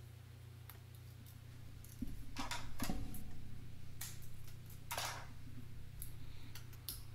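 Cutters snipping plastic zip ties off an HPA tank's air regulator: a few sharp snips bunched about two to three seconds in, then single clicks, over a steady low hum.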